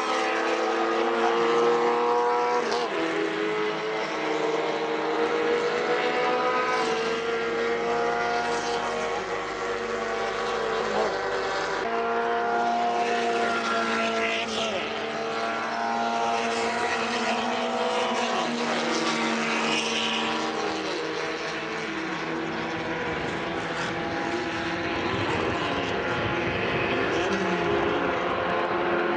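Several 850 Promocional class race cars lapping the circuit. Their small engines run at high revs, and the engine notes overlap and shift in pitch as the cars change gear and pass by.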